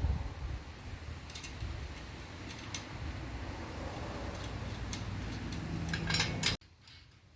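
Light metallic clinks and ticks of bolts, washers and nuts being handled and fitted on a steel shop-press frame, over a steady low hum. A quick run of clinks comes near the end, then the sound cuts off abruptly.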